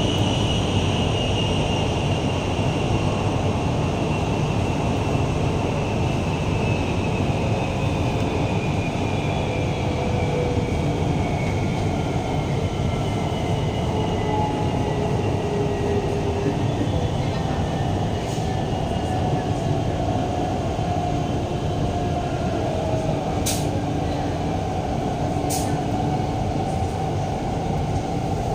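Guangzhou Metro Line 18 train heard from inside the car: a steady rumble of running gear on the track, with the whine of the electric traction motors gliding slowly down in pitch as the train slows for the station. Two sharp clicks come about three-quarters of the way through.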